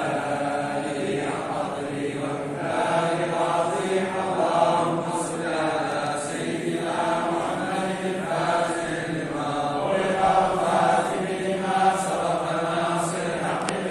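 Men's voices chanting together in short repeated phrases, a group dhikr or collective recitation.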